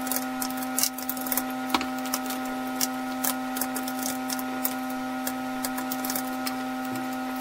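Typing on a computer keyboard: quick, irregular key clicks. Underneath runs a steady drone of held tones.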